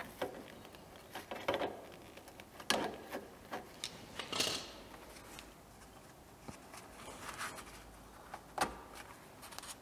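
Scattered light clicks and scrapes of pliers and gloved hands working on the hardware of a disc brake caliper, with a short rasping scrape about four seconds in; the middle-to-late stretch is quieter.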